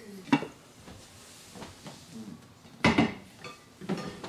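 Spoon and ceramic crockery clinking and knocking a few separate times, the loudest a quick double knock about three seconds in.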